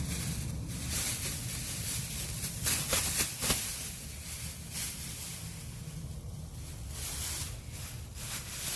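Crinkling and rustling of a plastic bag being handled and opened, in irregular bursts that are busiest about three seconds in, over a steady low rumble.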